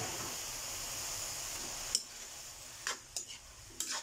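Oyster mushrooms and water spinach sizzling in a frying pan while a spatula stirs them, with a few scrapes and clinks of the spatula against the pan. The sizzle is steady for the first couple of seconds, then dies down, leaving mostly the scraping strokes.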